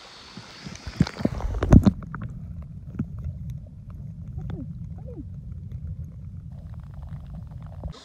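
A phone plunged into river water: splashing and bubbling as it goes under, loudest at about one to two seconds in, then a muffled low rumble of underwater sound with a few bubbly gurgles, until it comes back up into the air at the very end.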